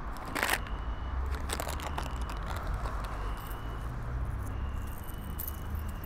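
A hand rummaging through a handbag: the things inside rustle, scrape and click in a string of short irregular sounds over a low steady hum.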